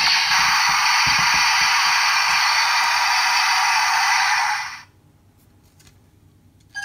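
Orb Ring transformation toy playing a steady hissing electronic sound effect through its small speaker for about four and a half seconds, then fading out. After that come a few faint plastic clicks from the toy being handled.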